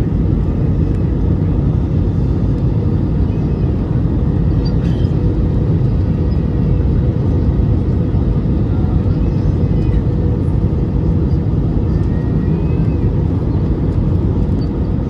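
Steady low rumble of a jet airliner's engines and airflow, heard from inside the passenger cabin.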